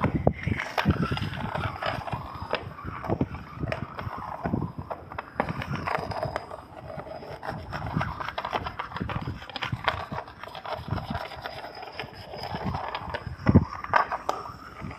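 Abandoned-house sound effect: wood creaking and scraping, with scattered knocks throughout and a louder thump near the end.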